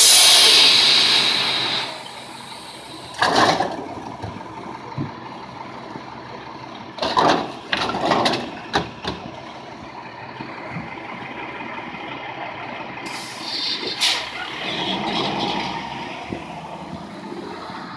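Loud hiss of the recycling truck's air brakes, starting suddenly and fading over about two seconds, over the truck's idling diesel engine. A few short clattering bursts follow later as recyclables are tipped from a curbside bin into the truck.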